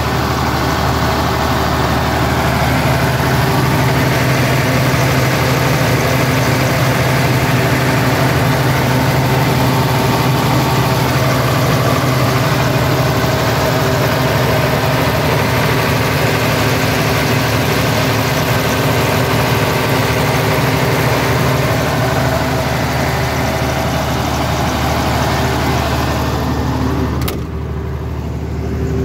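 Diesel generator engine running at a steady speed. Near the end there is a sharp click, and after it the sound is duller and more muffled as the cabinet door is shut.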